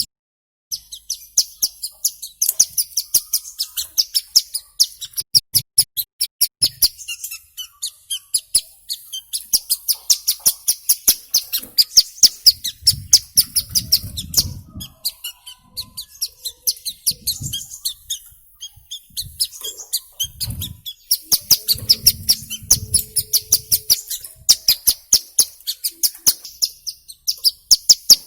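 Ciblek gunung prinia calling: rapid runs of short, sharp, high chirps, several a second, in long bursts with brief pauses between.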